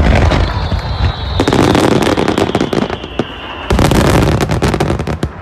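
Fireworks bursting, with dense crackling that swells about a second and a half in and again near the end, over a thin whistle that falls slowly in pitch.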